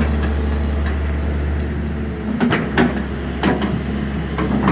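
Excavator diesel engine running steadily, with several sharp metallic knocks in the second half.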